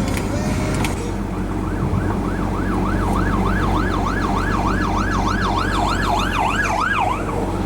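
Emergency vehicle siren in a fast yelp, its pitch sweeping up and down about two and a half times a second. It starts about a second and a half in, grows louder, and stops shortly before the end, over the steady drone of a vehicle engine.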